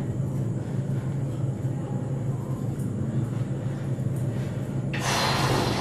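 Steady low hum with a whiteboard eraser rubbing across the board, the rubbing loudest in one short stroke near the end.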